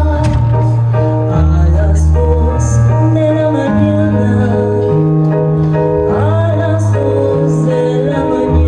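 Background music: slow held chords over a bass line that steps to a new note every second or so, with a faint voice singing along.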